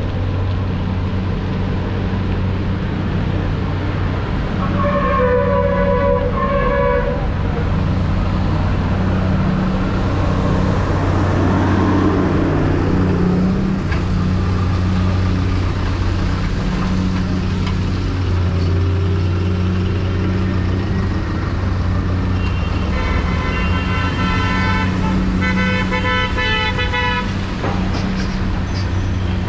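Vehicle horns honking in road traffic over a steady low drone. One horn sounds for about two seconds, about five seconds in; from about 23 seconds, horns blare again and again until near the end.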